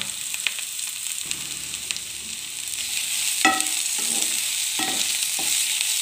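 Sliced carrot, capsicum, onion and green chilli sautéing in hot oil in a pan: a steady sizzle, with a spatula knocking and scraping against the pan several times in the second half.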